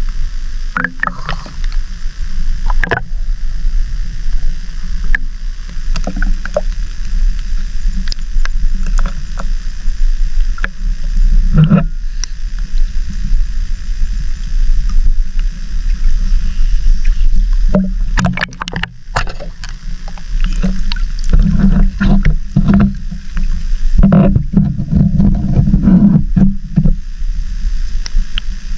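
Water sloshing and gurgling around a waterproof-cased camera dipped in and out of shallow sea water, over a steady low rumble, with many scattered clicks and knocks that come thicker from about two-thirds of the way in.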